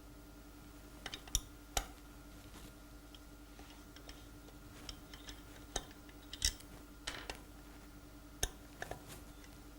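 Irregular sharp clicks and taps of a Torx driver working on the screws in the bottom of a vacuum block, over a faint steady hum.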